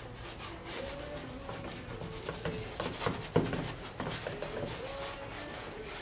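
Stiff bristle brush scrubbing thick paint onto a stretched canvas in a run of short, scratchy rubbing strokes, the strongest about three seconds in.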